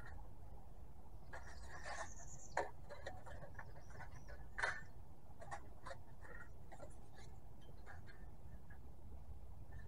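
Steel panels of a folding wood-burning backpacker stove clinking and scraping against each other as they are unfolded and laid out, with light taps and two sharper metal clicks about two and a half and four and a half seconds in.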